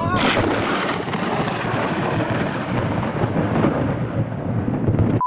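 Thunder from a nearby lightning strike: a sudden loud crack, then a continuous crashing rumble that lasts about five seconds and is cut off abruptly.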